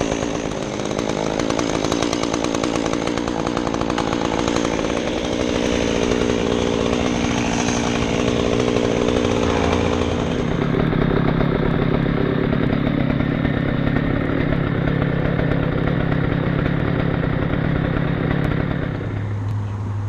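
A small engine running steadily. Its sound changes about halfway through, losing its higher part, and it drops lower in pitch near the end.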